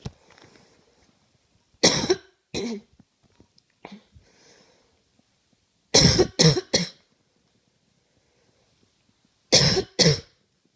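A person coughing in short bouts: two coughs about two seconds in, three in quick succession about six seconds in, and two more near the end.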